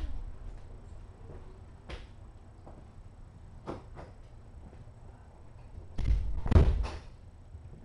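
Room tone with a couple of light knocks, then a louder cluster of dull thumps about six seconds in.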